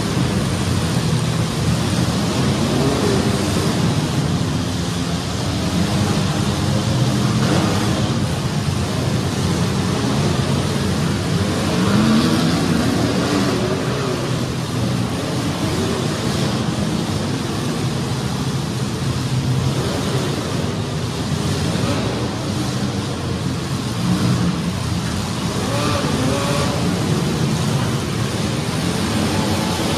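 Several compact demolition-derby cars' engines running and revving hard together, their pitch rising and falling again and again.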